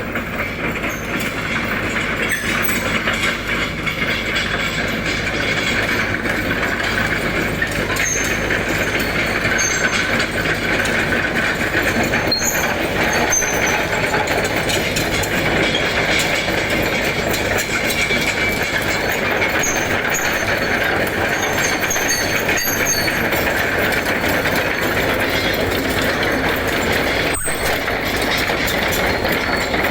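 Chainsaw running steadily under load.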